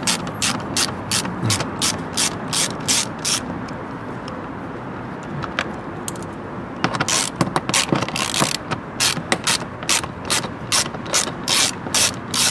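Hand ratchet's pawl clicking steadily, about four clicks a second, as it backs out 10 mm-head screws. It stops for a few seconds midway, then clicks on again, at times in quicker runs.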